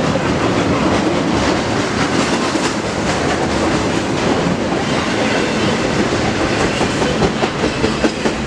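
Intermodal container freight train passing close by at speed: a loud, steady din of steel wheels on rail and rattling cars, with a few sharp clicks near the end.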